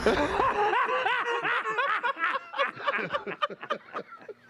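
A man laughing hard, a quick run of repeated 'ha' bursts that starts loud and trails off toward the end.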